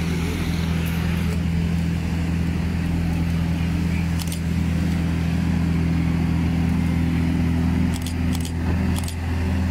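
Outboard engines of an RNLI inshore lifeboat running steadily at speed, a constant low drone, over the wash of small surf breaking on the beach. A few light clicks near the end.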